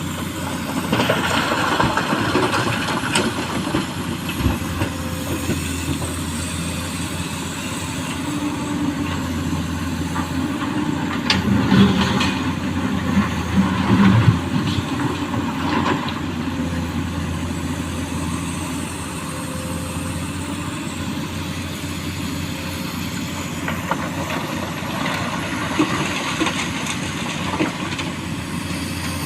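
Excavator's diesel engine running steadily while loading small stones into a dump truck, with two louder bursts of stones clattering and rattling near the middle.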